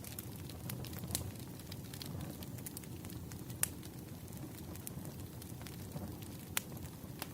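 Wood fire crackling: a low steady rumble with scattered sharp pops and snaps, two of them louder, about three and a half and six and a half seconds in.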